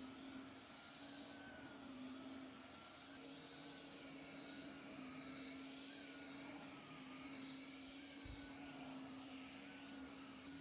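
A small electric motor appliance running steadily, with a constant low hum and a higher whine that wavers up and down in pitch.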